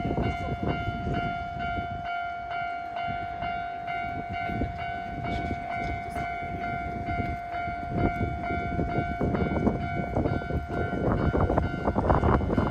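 Railway level crossing's electronic warning bell ringing steadily while a train passes, its wheels clattering over the rail joints. The bell stops about ten seconds in, and a louder rushing noise builds near the end.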